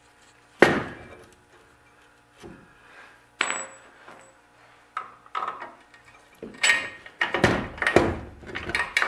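Metal knocks and clanks as a rear trailing arm is worked up into its mount under the car. There is a sharp knock near the start, a clank with a brief high ring a few seconds in, then a quick run of knocks near the end.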